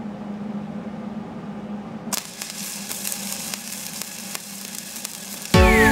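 Flux-cored arc welder: after a steady hum, the arc strikes about two seconds in and crackles and sizzles with dense, irregular pops as the flux-cored wire is fed into the weld on steel pipe. Loud music comes in near the end.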